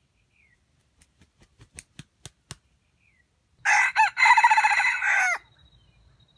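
Red junglefowl (wild jungle chicken) rooster crowing once, a short crow of under two seconds with a brief break near its start. Before it comes a quickening run of about eight sharp claps.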